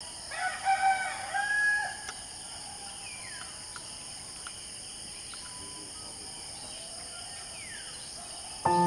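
A rooster crows once, about a second and a half long, near the start, over a steady high chorus of insects. Music starts suddenly just before the end.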